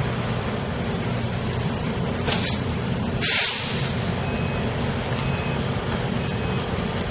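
Electric locomotive E332 of Taiwan Railway's E300 class humming steadily as it stands, with two short hisses of compressed air being let out of its brakes a couple of seconds in, the second louder and longer.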